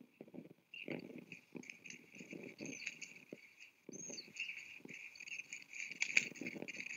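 Flock of griffon vultures squabbling over food: irregular scuffling and wing flapping, with a steady high-pitched chattering throughout. A sharp knock comes about six seconds in.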